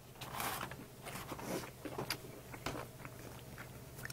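Faint chewing with a few light clicks and soft rustles.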